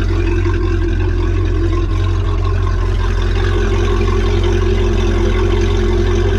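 MerCruiser 5.7 V8 sterndrive engine idling steadily out of the water on flushing muffs, warming up toward operating temperature; a steady, even low rumble.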